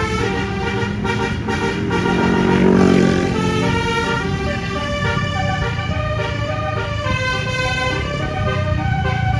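Telolet "basuri" multi-tone musical air horn on a Putera Utama Rahma bus playing a stepping melody of held notes, over steady engine and road noise that swells briefly around the third second.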